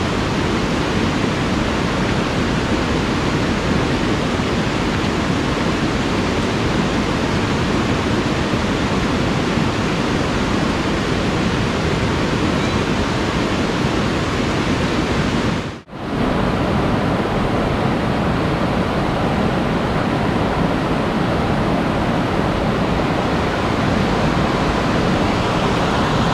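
A fast-flowing rocky river rushing steadily, running high after heavy rain. The noise breaks off for a moment about two-thirds of the way through, then returns a little duller.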